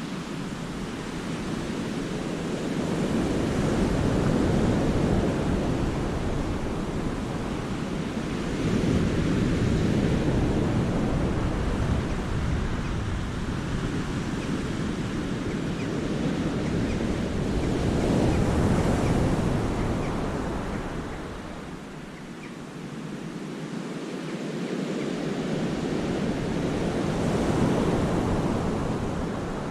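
Sea waves breaking and washing against a rocky cove, the surf swelling and ebbing in slow surges every several seconds, with some wind noise on the microphone.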